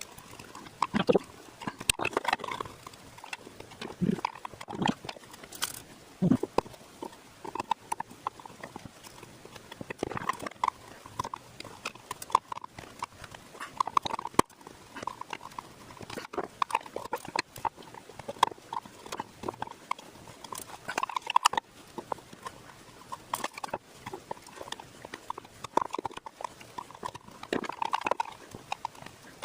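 Irregular scraping, picking and clicking of a hand tool working at a small plastic speaker box, gouging out epoxy and widening a hole for a connector.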